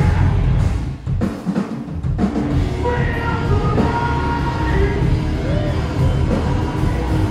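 Metalcore band playing live: pounding drums and heavy low-end guitars and bass, with short stop-start breaks in the first two seconds. Higher sustained notes come in over it from about halfway through.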